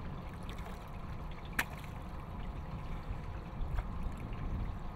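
Water lapping and trickling at the side of a boat, over a steady low rumble, with one sharp click about a second and a half in.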